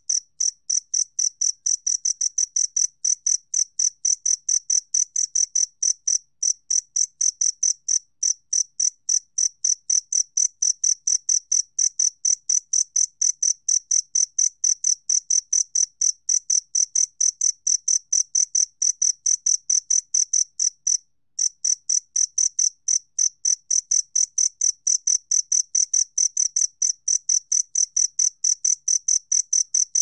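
Two-spotted cricket (Gryllus bimaculatus) calling song at 28 °C: a steady, high-pitched train of short chirps, about three a second, with a brief break about two-thirds of the way through.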